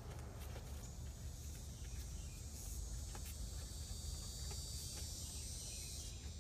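Insects buzzing in a steady high drone that comes in about a second in and cuts off just before the end, over a constant low rumble, with a few faint ticks.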